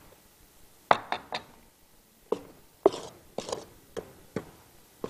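A utensil knocking against the metal bowl of a stand mixer while cocoa sponge batter is being worked in it: a string of sharp, irregular taps, three about a second in, then a quicker run of about half a dozen.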